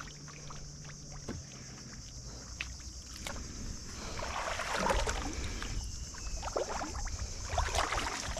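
Shallow river water splashing and sloshing as someone wades through it, in two louder spells about four seconds and seven and a half seconds in, over a steady high-pitched hiss.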